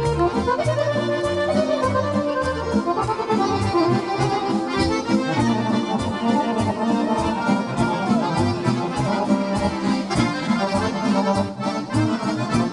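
Button accordions playing a lively instrumental folk tune with a steady beat and a moving bass line, an interlude between sung verses.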